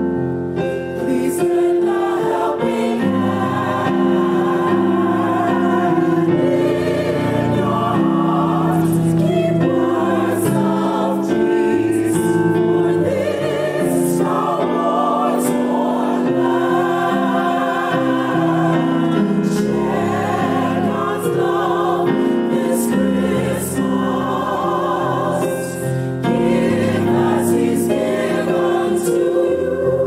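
Gospel choir singing a holiday song in full, sustained harmony with vibrato, the chords changing every second or two.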